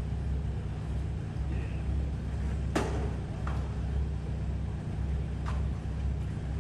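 Low, steady engine rumble, with a sharp knock about three seconds in and two fainter knocks after it.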